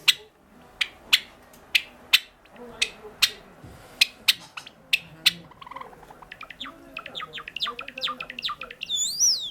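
Java sparrow singing: widely spaced sharp clicking notes at first, then from about six seconds in a quick run of short chirps that ends in a drawn-out whistle rising and falling in pitch.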